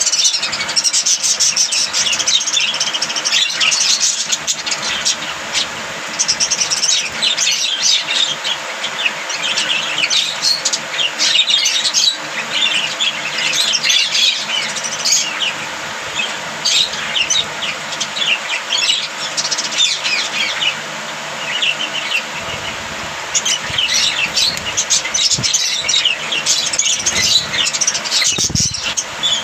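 A flock of budgerigars chirping and warbling, with many quick, high, overlapping chirps going on continuously.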